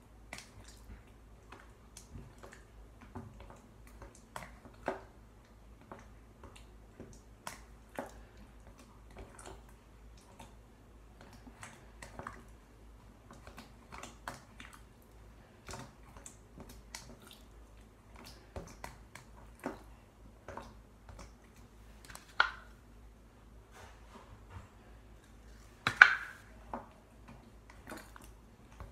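Slime being squeezed and poked, giving an irregular run of small wet clicks and pops, with two louder pops about 22 and 26 seconds in.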